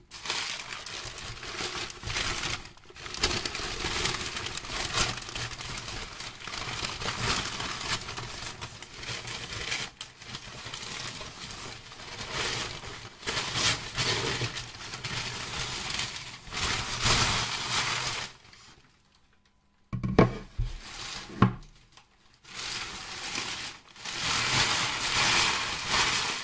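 Crumpled packing paper crinkling and rustling as it is pulled away from a wooden ramp. After a short lull about three-quarters of the way through come a few sharp knocks, the loudest sounds, before the rustling resumes.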